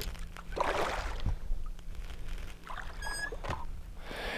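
Water splashing and sloshing against the side of a small boat as a hooked peacock bass thrashes at the surface and is landed by hand, with a few light knocks. A short high-pitched tone sounds about three seconds in.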